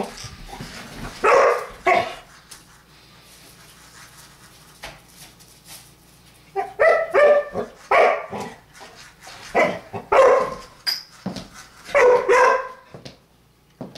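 Dog barking in play at a toy ball: two barks about a second in, a lull, then a run of short, loud barks through the second half.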